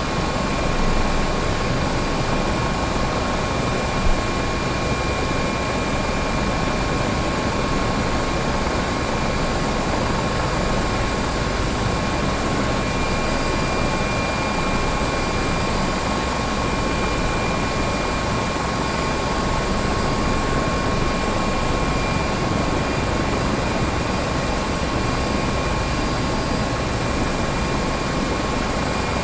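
Helicopter running steadily: an even rushing engine and rotor noise with several constant high-pitched whines over it, holding the same level throughout.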